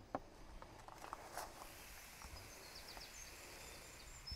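Faint outdoor background noise with a few short distant bird chirps about a second and a half in, and a couple of soft clicks near the start.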